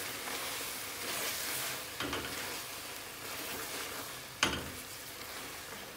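Chicken and wilted fenugreek leaves sizzling as they fry in a metal frying pan, stirred with a wooden spoon. Two sharp knocks of the spoon against the pan, one about two seconds in and a louder one a little past four seconds.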